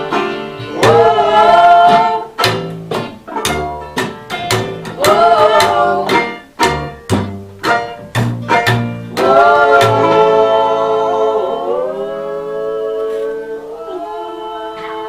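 Acoustic folk band playing live: plucked and strummed strings under a melody line for about ten seconds, then long held notes that fade over the last few seconds as the song closes.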